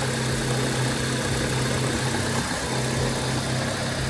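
Honda Civic EF engine idling steadily while its cooling system is being bled of air, radiator fan not yet running.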